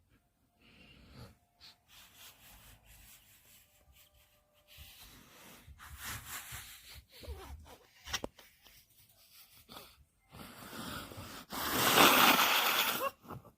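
A sleeping dog snoring: an irregular series of noisy, rasping breaths of uneven length, with the longest and loudest snore near the end.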